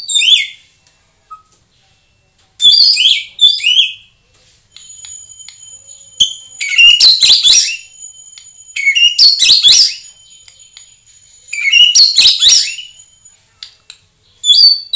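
White-rumped shama singing in about five loud bursts of quick, varied song phrases. Under the middle bursts a steady high-pitched whistle tone is held for several seconds: the lure whistle played to provoke the bird into singing.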